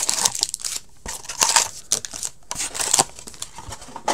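Foil-wrapped SP Authentic hockey card packs crinkling and rustling in several short bursts as they are lifted out of their box and stacked, with a sharp click near the end.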